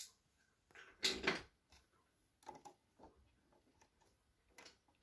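Clicks and knocks from handling a record player: a sharp click as a front-panel button is pressed, a louder cluster of knocks about a second in, then scattered lighter clicks as the tonearm is handled.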